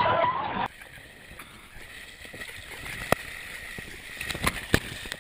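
Shallow water sloshing and splashing around a camera held at water level, with a few sharp taps in the second half. People's voices are heard for the first moment before it.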